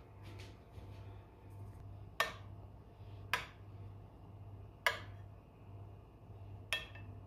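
Metal spoon clinking against a ceramic soup plate four times, about a second or more apart, while stirring thick soup; the last clink rings briefly. A steady low hum runs underneath.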